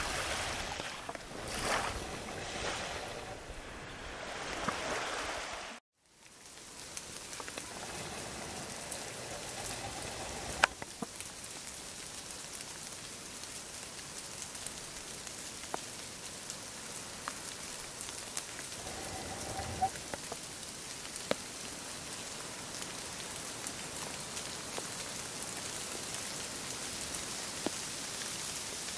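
Small waves washing gently onto a sandy beach for the first few seconds. After an abrupt cut comes a steady hiss of rain falling on wet forest ferns and undergrowth, with scattered drip ticks.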